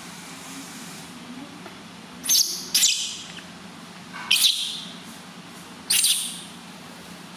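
Newborn baby monkey crying: four short, loud, high-pitched cries, each falling in pitch, the first two close together about two seconds in and the others about four and six seconds in.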